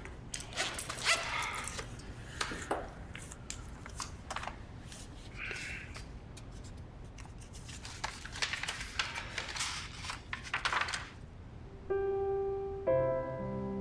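Rustling and handling noises, irregular scrapes and clicks, as things are fumbled with. About twelve seconds in, soft piano music begins with sustained notes.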